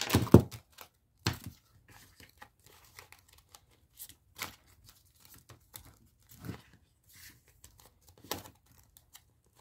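Paper dollar bills and a plastic binder pocket being handled: crinkling and rustling in scattered short bursts with light clicks. The loudest handling comes right at the start.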